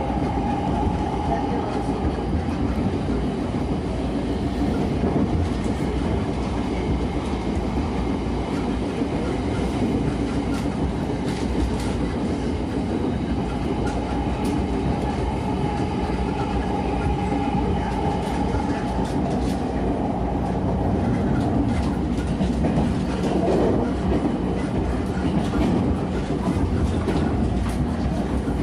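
JR East E231 series electric commuter train heard from inside a motor car, running at speed: a steady rumble of wheels on rail with some clickety-clack, and a faint motor whine that fades out early on and returns for a few seconds midway.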